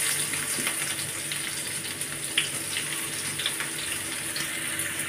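Chopped onion sizzling in hot oil in a kadhai (wok), a steady hiss with a few light clicks.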